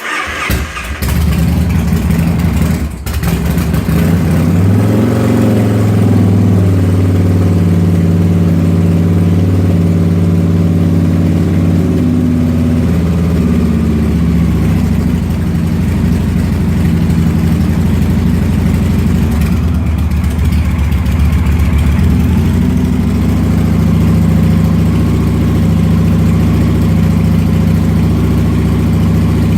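A motorcycle engine fires up and runs rough at first while the throttle is worked, its revs rising and falling for several seconds. It then settles into a steady, even idle for the second half.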